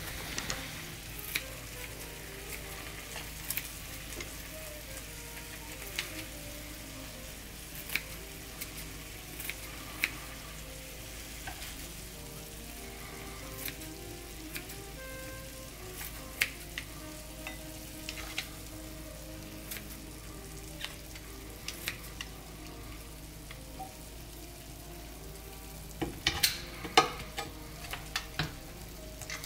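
Steady sizzle of marinated beef short ribs frying in a pan, with scattered sharp clicks and snips from kitchen scissors cutting the ribs over a bowl. A quick run of louder clicks comes near the end.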